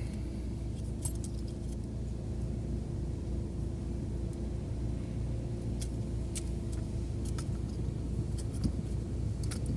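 Scattered light metallic clicks and clinks of small parts or tools being handled, over a steady low hum.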